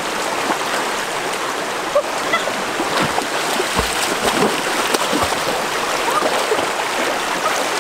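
River water running steadily, with scattered small splashes and drips in the middle.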